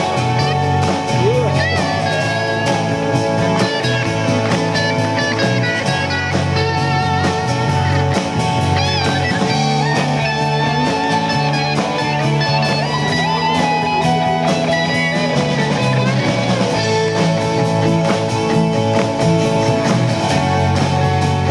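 Live rock band playing loudly, led by electric and acoustic guitars over a bass line and drums, with wavering bent notes riding on top.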